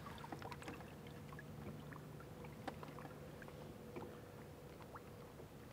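Faint lake water lapping at the side of a boat, with small scattered drips and splashes over a low steady hum.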